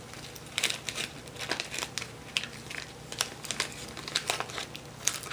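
Thin plastic packaging bags crinkling as they are handled, a run of irregular sharp crackles.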